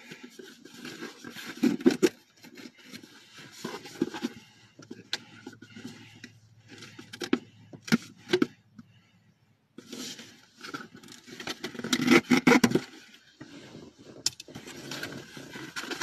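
A parcel being opened by hand: irregular rustling, crinkling and scraping of packaging with scattered clicks, loudest about two seconds in and again about twelve seconds in.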